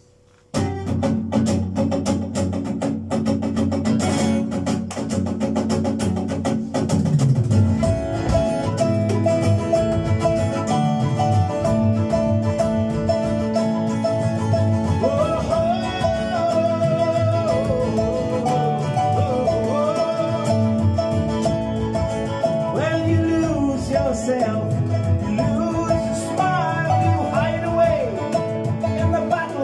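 Live folk band playing an instrumental intro: strummed acoustic guitar and a hand-held frame drum starting about half a second in, with a flute melody entering about eight seconds in, and Celtic harp.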